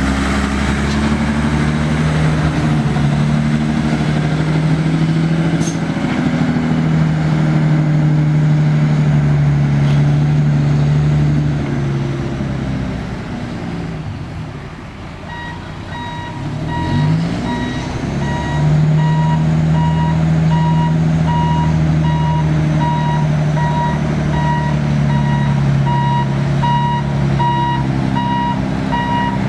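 John Deere 400D articulated haul truck's Mercedes-Benz six-cylinder turbo diesel running as the truck drives. About halfway the engine drops back, then revs up again as the truck reverses. Its backup alarm beeps about once a second over the engine.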